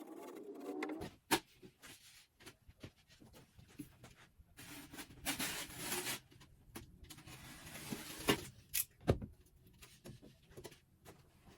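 Drywall work sounds: a sharp knock about a second in, two longer scraping hisses in the middle, then several more sharp knocks near the end.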